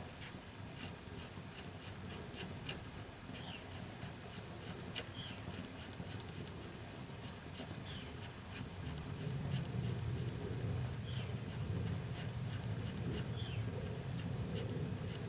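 Light metallic clicks and scraping of a large hub lock nut being spun by hand onto the threaded rear axle spindle of a 1977 Ford F250. Faint high chirps are scattered throughout, and a low rumble comes in about nine seconds in.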